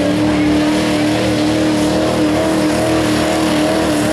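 Pickup truck's engine held at high revs under heavy load as it drags a weight-transfer sled through dirt, one loud, steady engine note.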